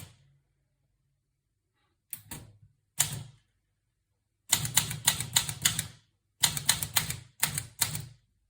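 Olivetti Lettera 32 manual portable typewriter being typed on: two single keystrokes a second apart, then two quick runs of sharp key strikes with a short pause between them.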